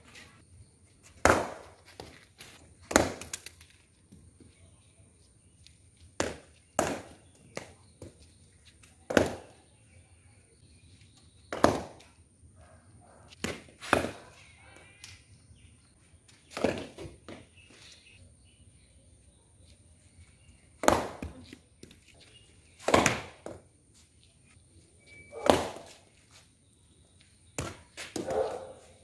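Leather cricket ball cracking off a cricket bat, with the ball bouncing on the concrete floor: sharp knocks every two to three seconds, several in quick pairs.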